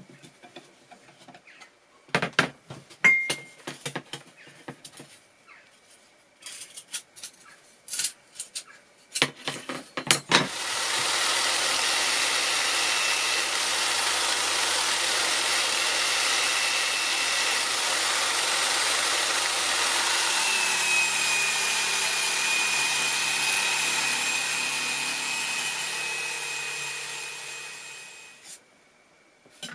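Small bench grinder fitted with a wire wheel, switched on about ten seconds in and running steadily with a whine while a metal plane part is wire-brushed against it; the pitch drops a little partway through and the motor winds down near the end. Before it starts, scattered clicks and scrapes of a screwdriver on the plane's chipbreaker screw.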